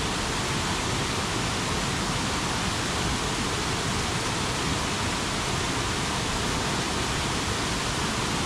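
Waterfall on a rocky mountain stream, a steady, even rush of falling water close by.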